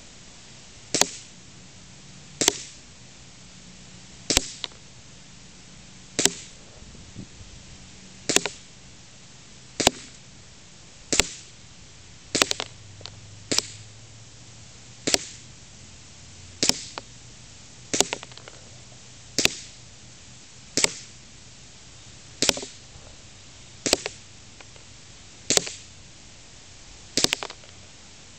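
WE M9 gas-blowback airsoft pistol firing single shots at a steady pace, about eighteen sharp cracks, one every second and a half to two seconds.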